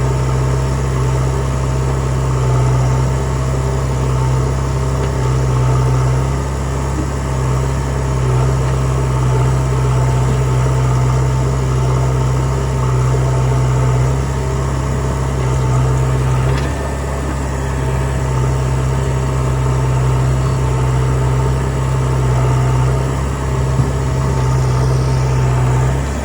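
Diesel engine of heavy farm and earthmoving machinery running steadily at an even speed, a low continuous hum.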